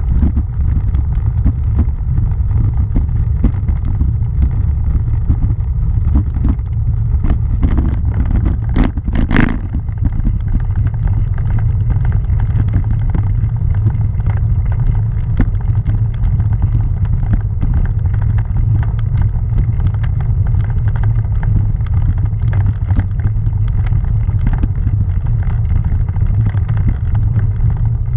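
Tyres rolling over a cobblestone road, shaking the mounted camera: a steady low rumble with a dense, fast, uneven clatter, and a brief louder clunk about nine seconds in.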